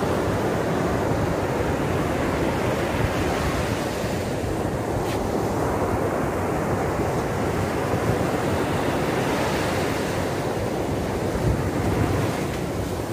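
Surf breaking and washing up a sandy beach, a steady rush of water with wind on the microphone.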